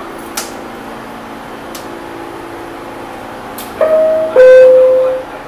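NYC subway car door-closing chime: two descending tones, a short higher one and then a lower one held for nearly a second, sounding about four seconds in and warning that the doors are about to close. Under it runs the steady hum of the stopped car, with a few sharp clicks earlier on.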